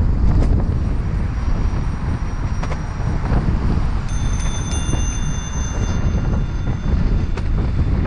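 Wind buffeting the microphone of a helmet-mounted camera while cycling, over a steady low rumble. About halfway through, a faint high-pitched whine sounds for two to three seconds.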